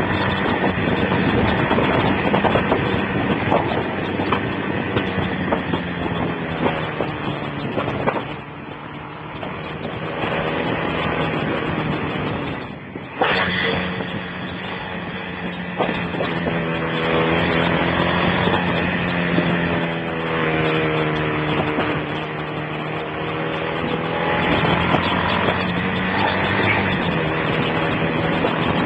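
Motorcycle engine running at road speed, heard through a basic phone microphone, its revs rising and falling. The sound dips briefly about thirteen seconds in, then comes back sharply.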